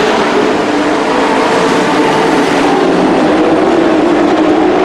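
Several dirt-track stock race trucks' engines racing together in a pack, a loud, steady roar of overlapping engine notes that waver up and down.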